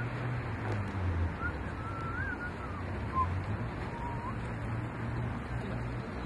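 Open-air background sound: a steady low hum under a noisy, wind-like haze, with a few faint, short whistles that rise and fall.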